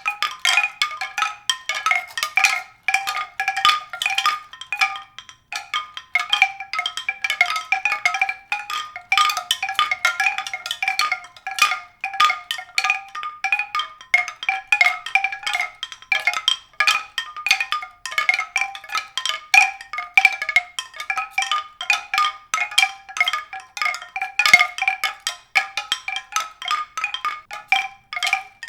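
Quick, irregular struck tones like mallet percussion, several notes a second ringing on the same few high pitches and carrying on without a break.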